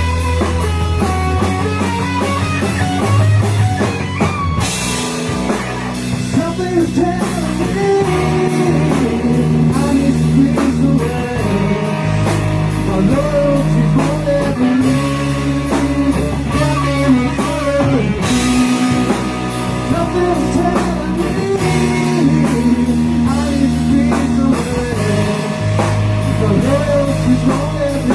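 Rock band playing a song: electric guitar lines over a drum kit, with crashes of cymbal about five seconds in and again around eighteen seconds.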